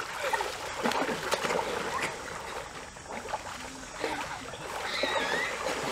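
Water splashing and churning as people thrash and wrestle in a shallow stream, in quick irregular splashes.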